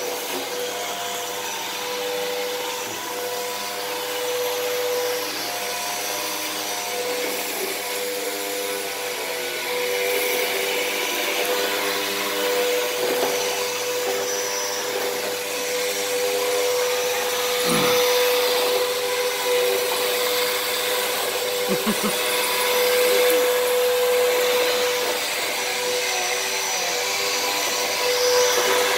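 Upright vacuum cleaner running steadily, its motor giving an unbroken hum with a constant tone over a rushing noise, growing a little louder about a third of the way in.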